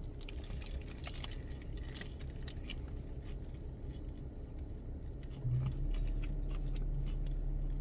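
Chewing on a crunchy Doritos taco shell, with scattered small crunches and clicks. About five and a half seconds in, a low steady hum comes up and runs on underneath.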